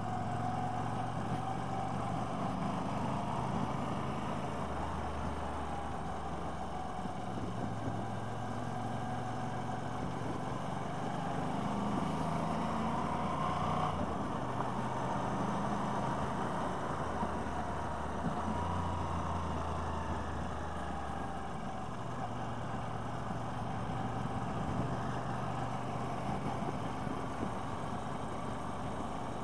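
Motorcycle engine running under way, its pitch stepping up and down several times as the throttle and gears change, over steady wind and road noise.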